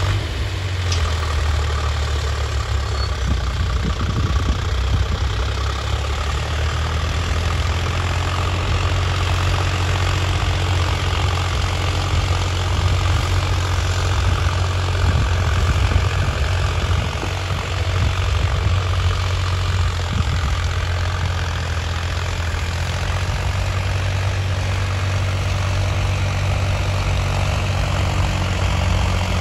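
Sonalika 745 tractor's three-cylinder diesel engine running steadily under load while pulling a disc harrow through ploughed soil, a strong low drone.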